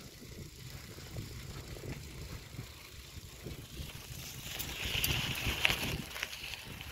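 Twitter TW3900XC mountain bike being ridden: a steady low rumble of wind on the microphone and tyres rolling, with a louder patch of hissing and clicking about five seconds in.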